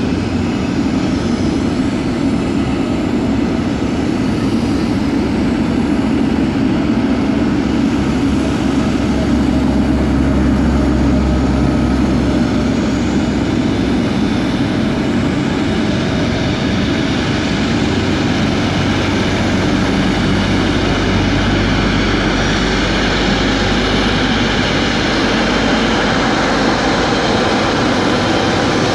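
Boeing 777-300's twin jet engines running at taxi power, a loud steady rumble and hiss, with the deep rumble swelling briefly about nine seconds in and again later.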